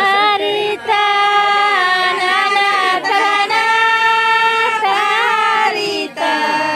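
A high voice singing a slow melody in long held notes, the phrases breaking off briefly every one to two seconds.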